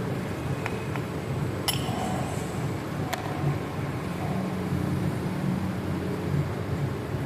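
Steady low mechanical hum with two sharp metallic clinks about a second and a half apart, the first ringing briefly.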